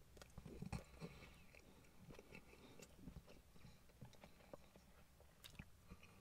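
Faint chewing of a mouthful of chicken burger, with soft wet mouth clicks and smacks scattered throughout and a slightly louder one under a second in.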